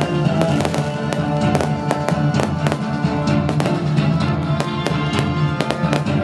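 Aerial fireworks bursting overhead in a rapid, irregular string of sharp bangs and crackles, over loud music from a stage sound system.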